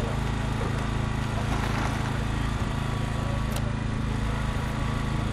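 Small engine of a hydraulic rescue-tool power unit running steadily at a constant speed, with a faint click about three and a half seconds in.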